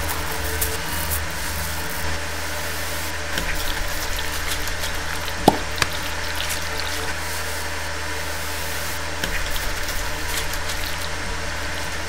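Steady bathwater ambience: an even watery hiss over a low hum, with small scattered splashes and drips and one sharper drip about five and a half seconds in.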